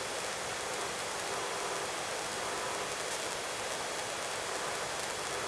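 Steady hiss from the helicopter's intercom audio feed with no one keyed in. The engine and rotors are not plainly heard through it.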